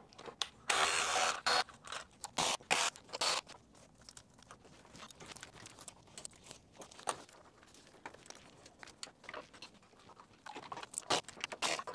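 Scraping, crunching and small clicks of hand work on a Toyota Prius engine as its EGR valve is worked loose and pulled out. The loudest bursts come in the first three seconds and again a little before the end, with quieter scattered clicks between.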